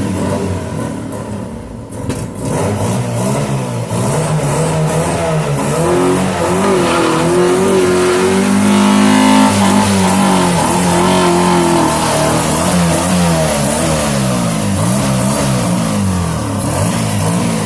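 Chevrolet Monza's four-cylinder engine revved hard, its pitch swinging up and down again and again, with a longer held rev in the middle.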